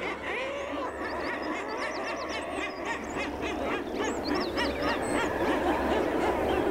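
Common guillemot colony calling: many calls overlapping into a continuous din, with thinner high calls mixed in over a low steady rumble.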